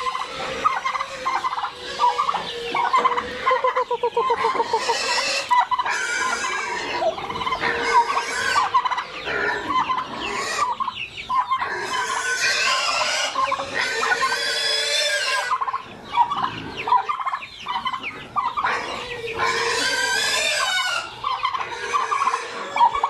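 Domestic tom turkey gobbling in several loud, warbling bursts, with other farmyard fowl clucking and calling steadily around it.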